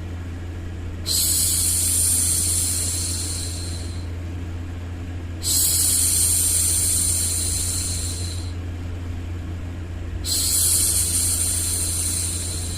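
A woman's voice making long 'shhh' hushing sounds, three times, each starting abruptly and tapering off over about three seconds, over a steady low hum.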